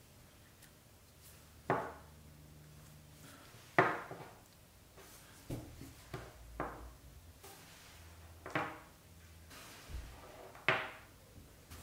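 Small nickel-plated steel sockets set down one at a time on a workbench: a string of separate sharp clacks with a short ring, about seven, one every second or two.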